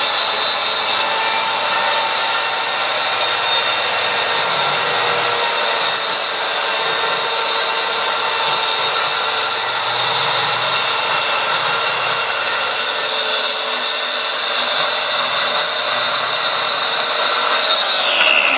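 Bosch GKT 13-225L 6-1/2-inch plunge track saw running under load, its blade cutting along a wooden board with a steady high motor whine. Near the end the motor winds down, its pitch falling.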